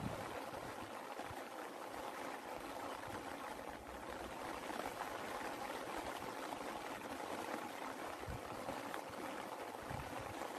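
Steady rain falling: an even hiss of many drops, with a few soft low thuds.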